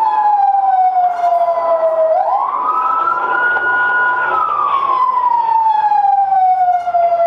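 Police car siren wailing: the pitch slides slowly down, sweeps quickly back up about two seconds in, holds high briefly, then slides slowly down again.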